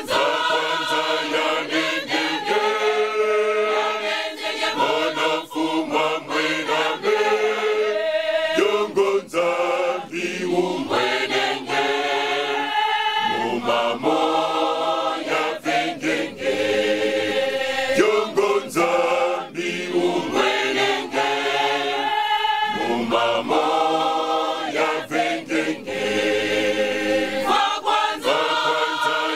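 Large mixed choir of men's and women's voices singing in harmony, in long held phrases with brief breaks between them.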